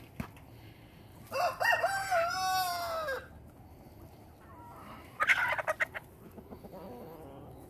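A rooster crows once, a long pitched call of about two seconds starting a second in. A few seconds later comes a quick cluster of short, sharp chicken clucks.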